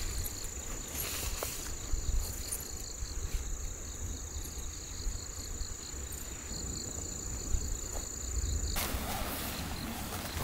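Steady high-pitched insect trill over a low wind rumble, with light rustling of nylon tent fabric being handled. About nine seconds in the trill stops abruptly and a broader rustling hiss takes over.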